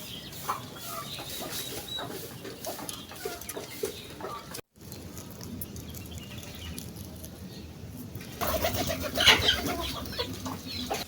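Backyard chickens clucking, with short calls throughout. The sound drops out briefly about halfway, then grows louder and busier near the end.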